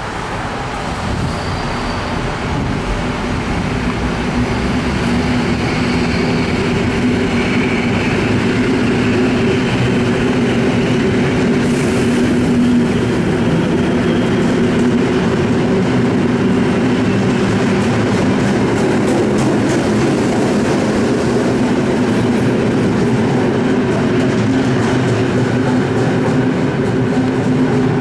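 Two coupled EN57 electric multiple units pulling out and running past, their electric traction motors humming steadily under the noise of the moving train. The sound builds over the first several seconds and then holds, with wheels clicking over rail joints in the second half.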